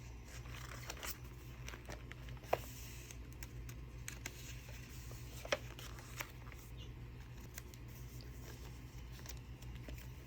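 Paper pages of a handmade junk journal being turned and handled, rustling faintly, with two sharp clicks about two and a half and five and a half seconds in.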